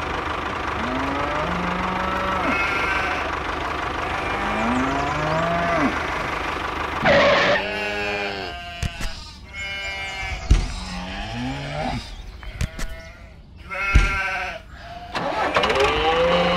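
A series of livestock calls, the loudest a long wavering cry about seven seconds in and another about fourteen seconds in, with a couple of sharp knocks in between.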